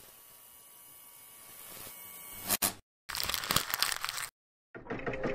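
Animated-intro sound effects: a rising whoosh that ends in a sharp snap, then a burst of paper rustling as a drafting scroll unrolls. Near the end a steady, rhythmic mechanical clicking with a held tone starts.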